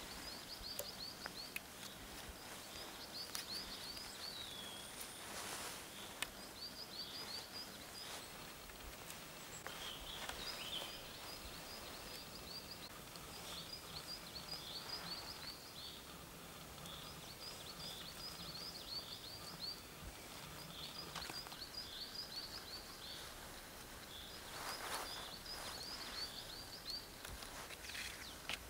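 A small songbird singing short phrases of quick, high notes, repeated every few seconds. A person brushing through spruce undergrowth rustles twice, about five seconds in and near the end.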